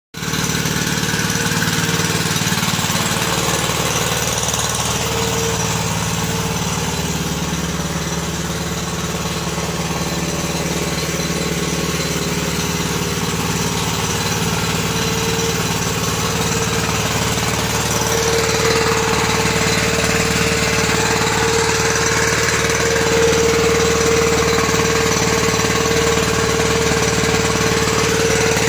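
Biogas-fuelled engine running steadily with a constant hum, getting slightly louder about two-thirds of the way through.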